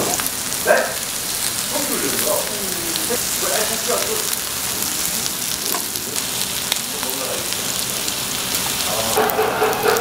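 Samgyeopsal (pork belly) sizzling and crackling as it cooks, with voices in the background.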